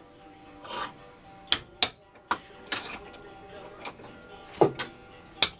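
Hand hammer striking a small workpiece at the bench: about six sharp, irregularly spaced blows, with music playing in the background.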